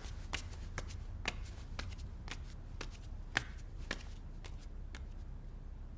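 Faint, irregular soft clicks and rustles, about one or two a second with one sharper click about halfway through, over a low steady hum.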